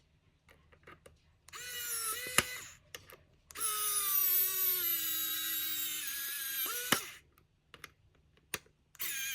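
Small electric power driver driving screws in three runs: a short one, a longer one of about three and a half seconds whose whine sags slightly in pitch as the screw tightens, and another short one near the end. A few sharp clicks come between the runs.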